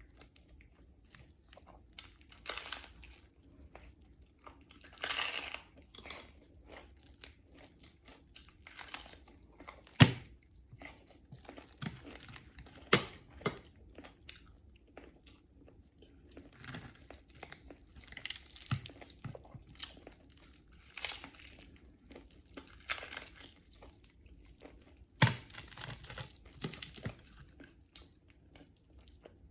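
Close-up chewing and crunching of crispy fried pompano, with irregular crisp bites and a few sharper cracks.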